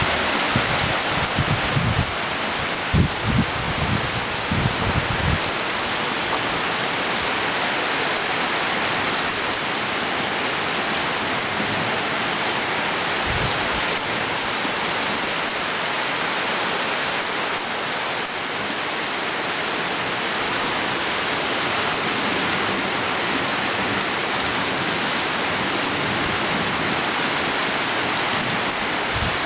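Heavy tropical downpour: a steady, dense hiss of rain pouring onto waterlogged ground and the palm-thatch roof. A few low thumps in the first five seconds.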